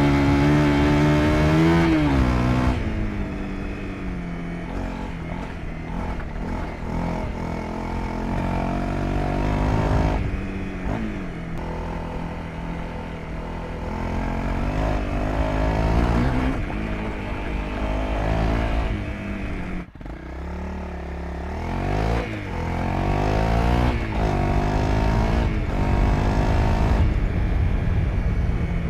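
Honda CRF250L Rally's single-cylinder 250 cc engine on its stock exhaust, revving up and down again and again, with a brief drop about two-thirds of the way through. The stock exhaust sounds quiet; the rider calls it silent.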